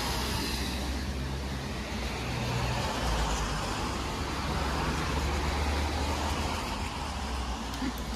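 Steady outdoor background noise: a low rumble under a broad hiss, with no distinct events.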